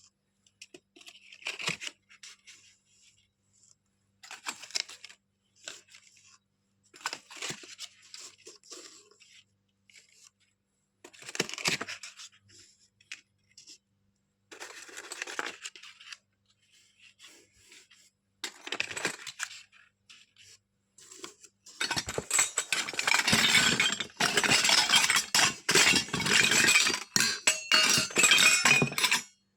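Small pieces of a miniature toy kitchen set being handled: short scattered clinks and rustles, then a dense run of clattering and clinking over the last several seconds.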